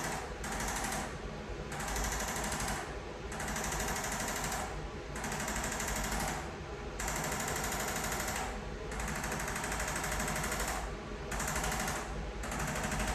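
Electric percussion massager hammering rapidly against a patient's back muscles, easing off briefly every second or two as it is moved.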